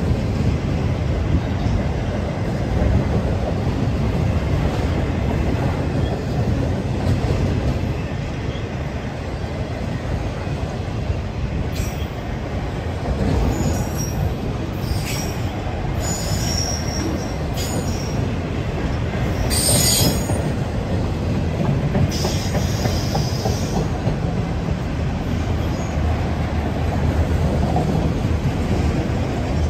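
BNSF freight train's cars rolling past with a steady low rumble, the wheels squealing several times in short high-pitched bursts in the middle of the passage.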